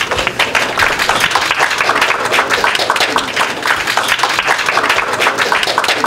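Audience applauding, a dense, even clapping from many hands.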